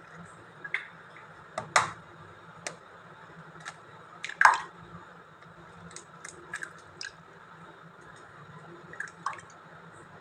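Hen's eggs cracked open one after another into a glass bowl: a string of short, sharp cracks and taps, the loudest about two seconds and four and a half seconds in.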